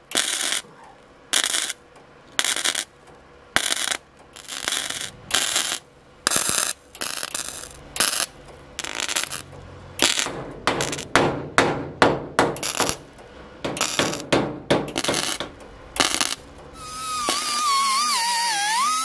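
Lincoln Electric 140 multi-process wire-feed welder laying short stitch welds on 16-gauge sheet steel: a quick series of crackling bursts of arc, each under a second, with short pauses between, run at a low amperage and wire-feed setting so the old panel doesn't burn through. Near the end a small die grinder spins up with a high whine that wavers in pitch.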